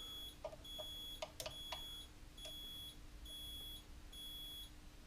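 Mobility scooter's electronic beeper sounding a regular string of high beeps, a little over one a second, that stop shortly before the end. This is the scooter's warning tone while its throttle pot sits off its neutral setting during adjustment. A few light clicks of a tool at the pot come in the first two seconds.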